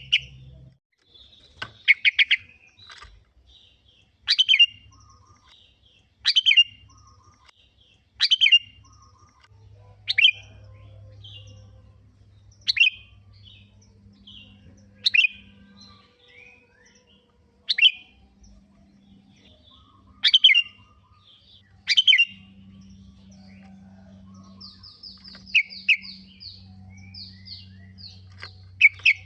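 Sooty-headed bulbul (kutilang) singing: short, sharp chirping phrases about every two seconds, with a run of quick, higher repeated notes near the end.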